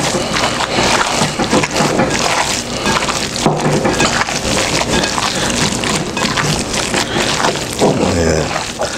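Ground pork and veal mixture being kneaded and squeezed by gloved hands in a glass bowl: continuous wet squishing and crackling of the raw meat.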